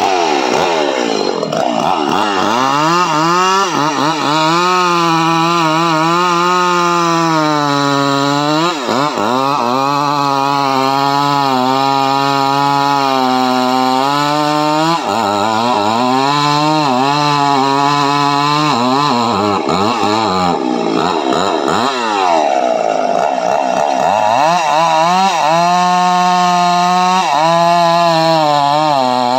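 Two-stroke chainsaw cutting into the trunk of a mahogany tree. Its engine pitch repeatedly sags as the chain bites into the wood and climbs back as the load eases, with a stretch of high free revving a little after two-thirds of the way in.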